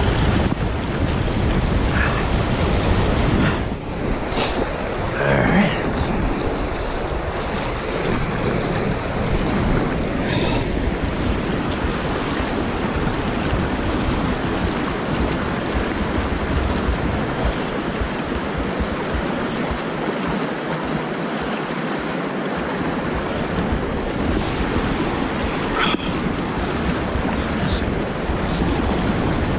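Water rushing steadily over a concrete spillway, with wind rumbling on the microphone.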